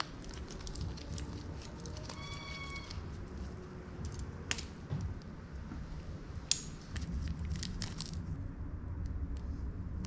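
Bicycle chain clinking and jingling as it is handled, with small sharp metal clicks from the links and a multi-tool chain breaker. A short squeak comes a little over two seconds in, over a low background rumble.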